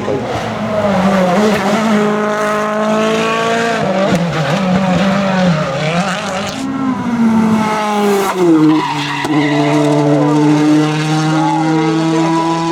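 Rally car engine revving up and down hard while its tyres skid and squeal. About two-thirds through, the engine settles and is held at a steady high pitch.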